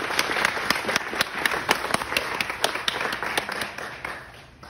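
Small audience applauding, with one person's sharp claps close by standing out, dying away near the end.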